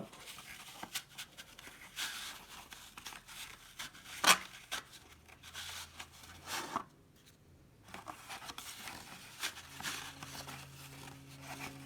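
Trading cards being worked out of a tight pack by hand: scraping, rubbing and crinkling of card stock and wrapper, with a sharp snap about four seconds in and a brief pause around seven seconds.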